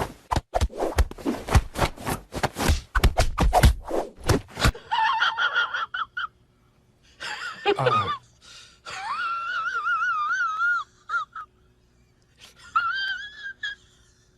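A burst of rapid clattering and scraping, then a cat meowing and yowling in several long calls whose pitch wavers up and down, one sliding steeply downward.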